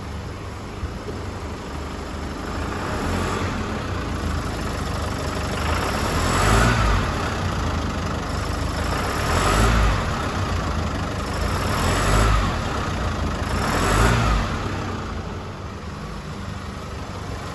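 Chevrolet S10's 2.8 turbodiesel engine idling and revved in about four short throttle blips. Under acceleration it makes a sewing-machine-like rattle, which the mechanic puts down to a faulty high-pressure fuel pump; the noise stops when the throttle is released.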